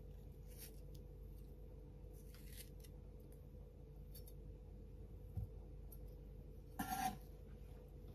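A kitchen knife paring the skin off a persimmon, with faint, brief cutting and scraping sounds. A low thump comes about five seconds in. Near seven seconds there is a short, louder clatter with a ring as the knife is set down on the wooden cutting board.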